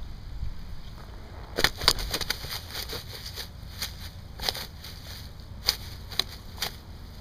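A channel catfish flopping on grass: irregular sharp slaps and rustles, starting about a second and a half in and coming every second or so, over a steady low rumble.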